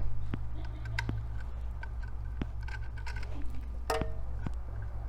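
Scattered light clicks and taps as wire ends are worked out of the screw terminals of a floor scale's junction box, with a small flathead screwdriver at hand, over a steady low hum. The sharpest click comes about four seconds in.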